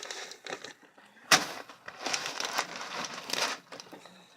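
Handling noise: rustling and fumbling with small objects, with one sharp click about a second in.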